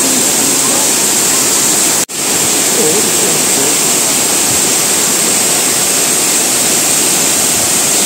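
Waterfall close by: water pouring down a rock face into a pool, a loud, steady rush, with a momentary dropout about two seconds in.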